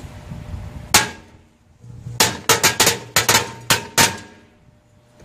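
A string of firecrackers exploding inside a closed microwave oven: one bang about a second in, then about nine more in quick, uneven succession over the next two seconds, with a brief ring after the bangs.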